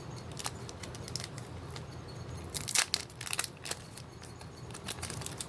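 Rustling and light clicking of hands tidying up plastic pack wrappers and a small trash bag, in scattered bursts with a louder cluster about three seconds in.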